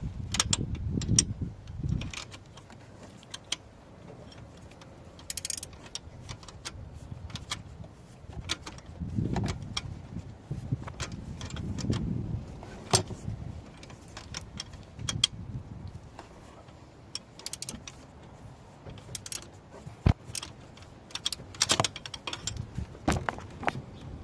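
Irregular metallic clinks and knocks of hand tools and bolts being handled while working on a car's starter motor, with a sharp knock near the end.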